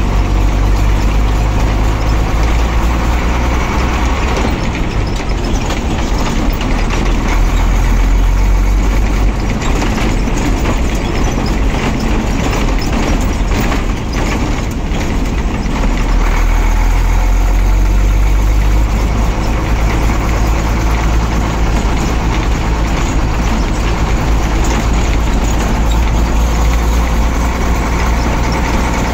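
Ashok Leyland Comet 1611 truck's diesel engine running under way, heard from inside the cab as a loud, steady low rumble. The engine note eases off in the middle and picks up strongly again a couple of seconds later.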